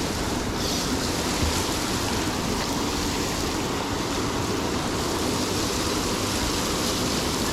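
River water rushing, a steady even flow.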